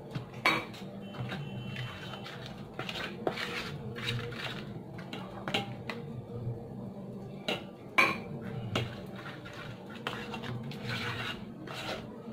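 Metal spoon stirring thick rajgira (amaranth) flour batter in a stainless-steel bowl: irregular scraping against the bowl's sides with sharp clinks, the loudest about half a second in and at about eight seconds.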